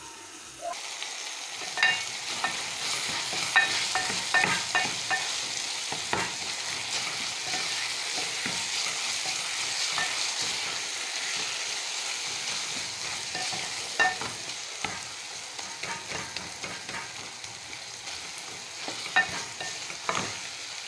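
Beef, onions and tomatoes sizzling in a metal cooking pot, starting about a second in, while a spoon stirs and scrapes through them. Sharp clicks come here and there as the spoon knocks against the pot.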